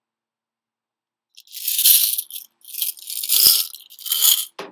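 Handfuls of small flat glass gemstones rattling and clinking as they are dropped into a floating tinfoil boat, in three bursts that begin about a second and a half in.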